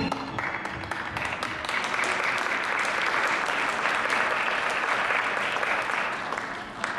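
Theatre audience applauding. The clapping swells about half a second in and fades out near the end.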